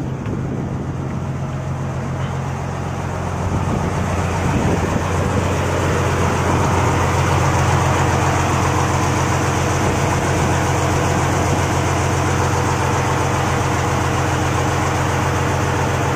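Fishing boat's inboard diesel engine idling steadily, getting louder about three and a half seconds in as the engine room is entered.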